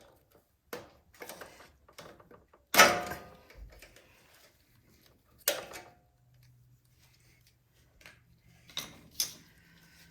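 Scattered clicks and knocks of hands and tools working on a snowblower engine while the carburetor and its hoses are being taken off. The loudest knock comes about three seconds in, another about halfway through.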